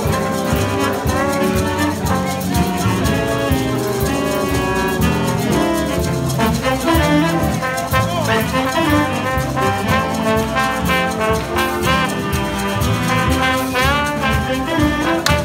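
Jazz big band playing live, with a trombone out front over trumpets, saxophones, upright bass and drum kit.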